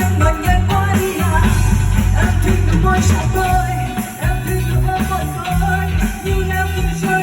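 Live band playing an instrumental passage of a pop song, with a steady bass line and drums.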